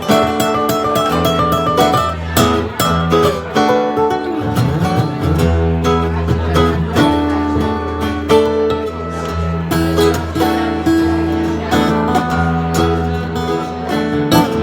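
Acoustic guitar playing an instrumental passage over a steady bass line, with no singing.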